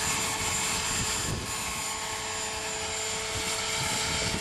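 Dragonus electric RC helicopter, powered by a JGF 500TH brushless motor, flying at a steady head speed: a steady whine from the motor and rotors over a rushing, with wind buffeting the microphone.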